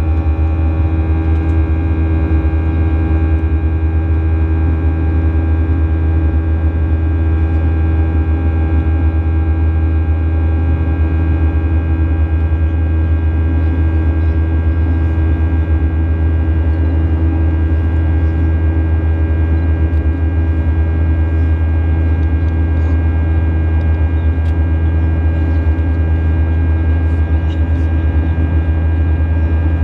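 Boeing 737-800 cabin noise in the climb, heard beside the wing-mounted CFM56-7B engine: a loud, steady low drone with several steady tones above it, unchanging throughout.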